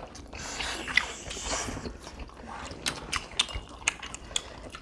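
Close-miked eating sounds: wet chewing and mouth noises, with many short, sharp clicks of chopsticks against food and dishes.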